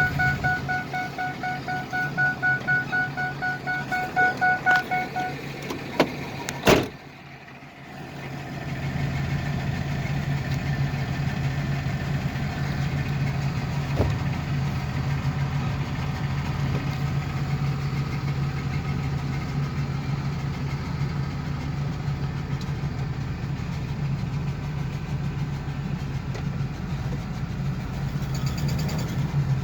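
Ford E350 van's electronic warning chime beeping rapidly for about five seconds, then a single sharp bang. After a brief lull the van's engine runs on with a steady low hum.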